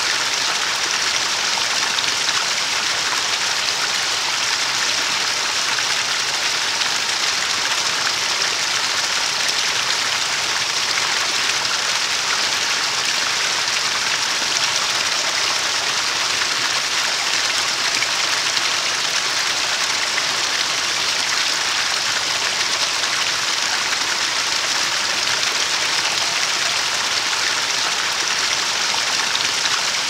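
Stream water flowing in a steady, unbroken rush, bright and hissing, with no change in level.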